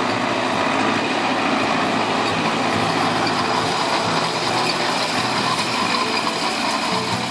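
Fendt 309 LSA tractor's diesel engine running steadily as it drives across grassland with its rear-mounted Amazone fertiliser spreader working.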